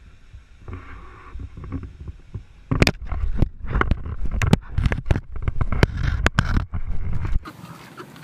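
An alligator's jaws clamping on and knocking against a camera held in shallow water: a run of sharp clicks and knocks from about three seconds in, over a low rumble of water against the microphone, which stops abruptly near the end.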